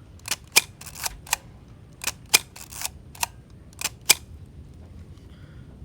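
About ten sharp, irregularly spaced mechanical clicks from handling a Nikon Nikkormat FT3 35 mm film camera, the loudest just after two seconds in and just after four seconds in.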